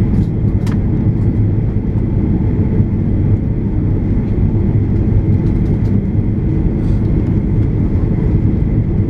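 Airliner cabin noise in flight: the steady low rumble of the jet engines and rushing air heard from inside the passenger cabin, with a light click or two near the start.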